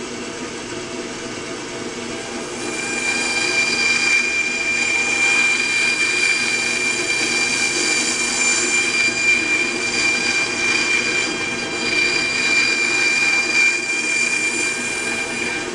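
A vertical bandsaw runs and cuts through a thick block of foam seat padding. A steady high whine joins the hum of the saw about two and a half seconds in and holds until near the end.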